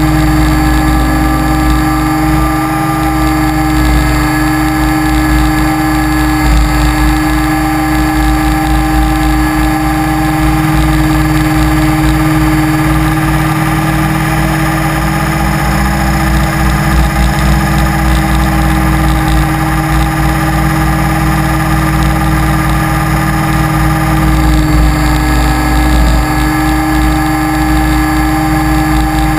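T-Rex 550E electric RC helicopter heard from its onboard camera in flight: a loud, steady whine of motor and drivetrain with several tones over a rough low rumble, shifting slightly in pitch a few times.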